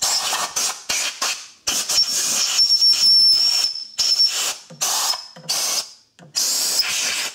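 Compressed-air blow gun blasting in about seven bursts of hiss, the longest more than two seconds in the middle, with a thin whistle over the hiss. It is blowing aluminium drill filings out of a freshly drilled hole.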